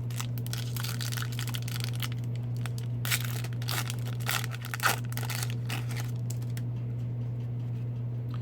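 Hockey card pack wrapper being torn open and crinkled, with louder bursts of crinkling about three seconds in and again near five seconds, over a steady low hum.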